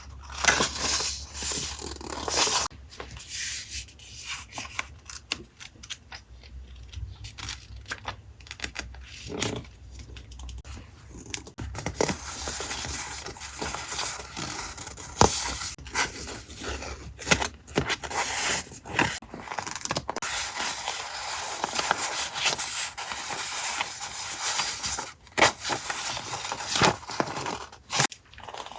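Paper and packaging handled close to the microphone: rustling and scraping with many sharp crinkles and small clicks, as in collage journaling. Fainter from about three to twelve seconds in, busier after that.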